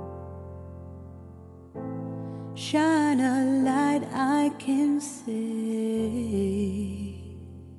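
Background music: sustained chords, joined about three seconds in by a wavering melody line that carries on over a lower held note, then fading near the end.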